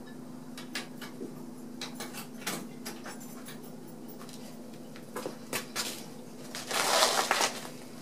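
Scattered light footsteps and scuffs on a concrete floor, then a louder rustling scuff about seven seconds in as a person kneels down onto a floor mat, over a steady low hum.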